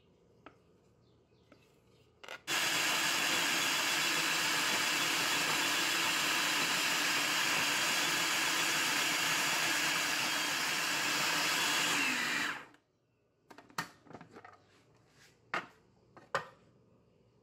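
Hamilton Beach food processor motor running steadily for about ten seconds, grinding almonds into almond butter, then winding down. A few sharp clicks and knocks follow.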